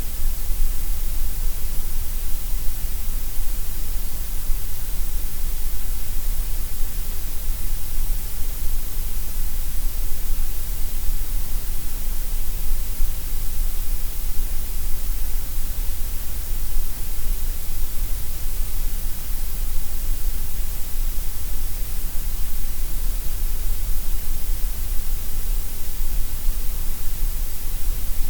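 Steady white noise: an even, unchanging hiss with no rhythm or breaks.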